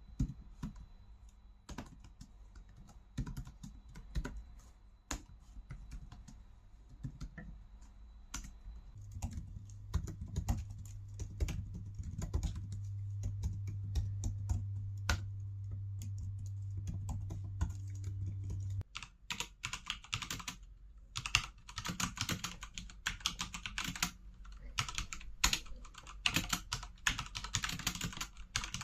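Typing on three keyboards in turn. First the ASUS TUF FX517Z laptop's keys. From about nine seconds in, the MacBook Pro 14-inch keyboard, with a steady low hum under it. From about nineteen seconds, the HyperX Alloy FPS Pro TKL mechanical keyboard with Cherry MX Red linear switches, its keystrokes denser and brighter.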